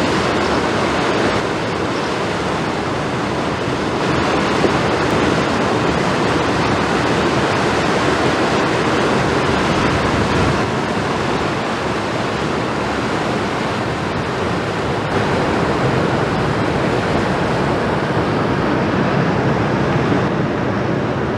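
Steady rushing noise of wind and river water.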